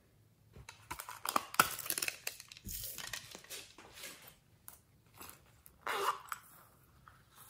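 Small plastic containers and packaging of slime add-ins being handled: a quick run of clicks, rattles and crinkles, then a short crinkle about six seconds in.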